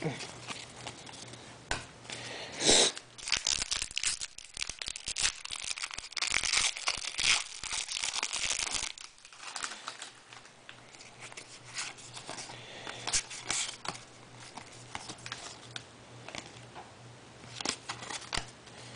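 A trading-card pack wrapper being torn open and crinkled: a run of tearing and rustling from about three to nine seconds in, with a sharper rip just before it. Scattered light clicks and slides of cards being handled follow.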